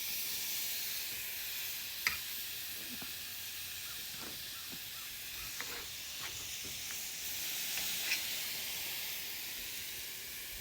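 Ribeye steaks sizzling on a hot grill grate: a steady high hiss with a few short crackles of spitting fat.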